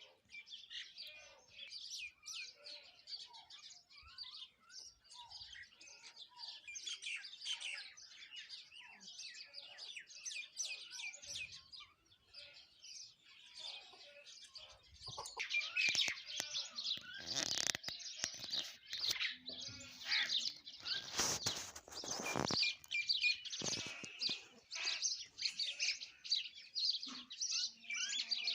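A flock of common mynas and sparrows chirping and calling over one another in a dense chorus of quick, high chirps, which grows louder about halfway through. Two short bursts of rushing noise stand out past the middle.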